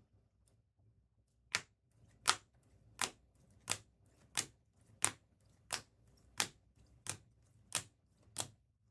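A sharp tap or click repeated about eleven times at an even pace, roughly one and a half a second, starting about a second and a half in.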